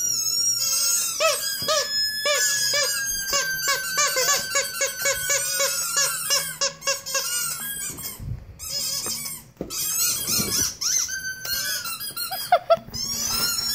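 Squeaky dog toy squeaking rapidly, several squeaks a second, in runs with short breaks. A thin high tone slides slowly down under the squeaks in the first half.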